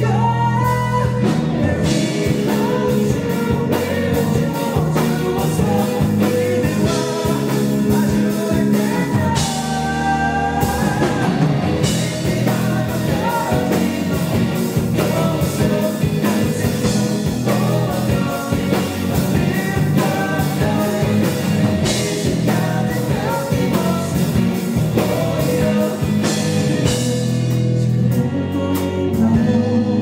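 A rock band playing a song live, with singing and electric bass over a steady beat.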